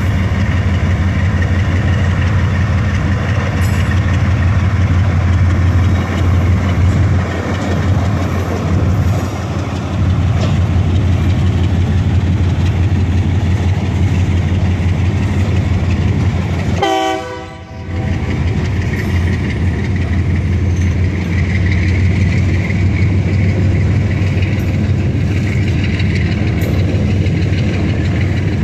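Diesel locomotive engine running steadily as it moves a string of gondola cars slowly past, with the cars rolling on the rails. Briefly drops out about two-thirds of the way through.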